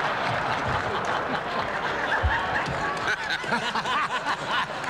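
Large audience laughing and applauding, a steady wash of clapping and laughter with scattered voices.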